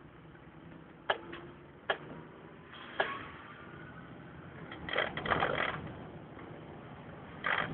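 Rattles and clicks inside a moving vehicle's cab: a few sharp clicks about one, two and three seconds in, then a burst of rattling about five seconds in, over low engine and road noise.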